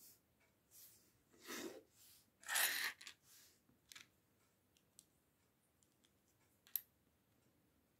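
Small plastic LEGO pieces being handled and fitted together: a few short rustling scrapes in the first half, the loudest about two and a half seconds in, then light ticks and one sharp click near the end as two pieces are snapped together.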